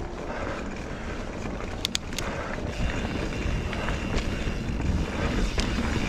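Mountain bike ridden over a rocky dirt trail: tyres rolling, wind on the microphone, and sharp clicks and rattles from the bike over bumps, a quick cluster of them about two seconds in.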